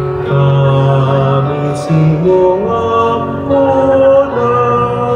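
Background music: a devotional hymn to the Virgin of Peñafrancia, with long held notes from voice and accompaniment.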